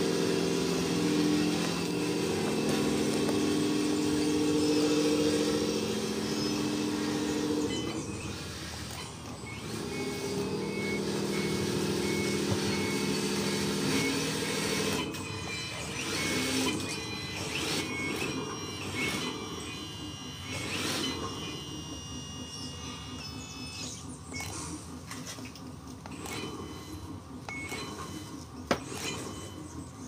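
Radio-controlled model dump truck and wheel loader working: a steady motor whir with a wavering pitch for the first half, then higher motor whine with short clicks and scrapes as the loader works the soil.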